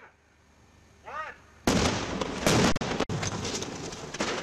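A brief tone that rises and falls, then, about a second and a half in, a sudden loud blast that carries on as a rough, uneven noise.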